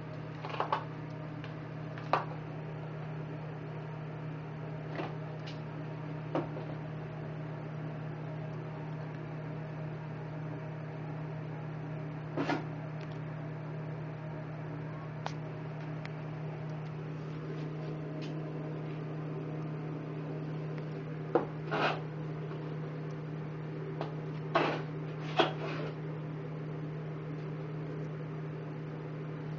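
Kitten's plastic cone collar knocking and scraping against the floor, food bowls and a wall: a dozen or so irregular sharp knocks, several in quick pairs in the second half, over a steady low hum.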